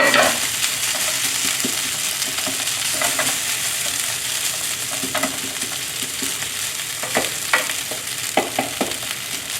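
Rice and vegetables sizzling in a hot frying pan as they are stir-fried, with a spatula scraping and knocking against the pan every so often.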